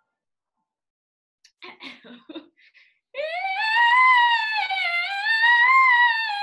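A high soprano voice singing a vocal exercise over a video call: after a silent start and a few short vocal sounds, one long vowel slides up to a high note, dips, rises again and falls away near the end.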